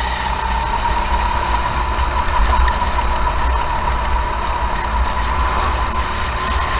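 Racing kart's engine running at speed, heard onboard, with low wind buffeting on the microphone. The engine note holds fairly steady, rising slightly and easing off near the end.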